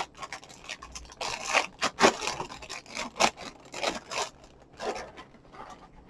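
Cardboard cereal box being handled and turned over, with a run of irregular scrapes and rubs of cardboard against hands and table that trail off about five seconds in.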